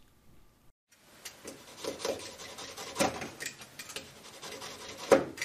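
Utility knife blade scraping against a newly glued cue tip in repeated short sawing strokes, trimming away glue residue and excess tip material flush with the ferrule. The strokes start about a second in, with a few louder ones near the middle and end.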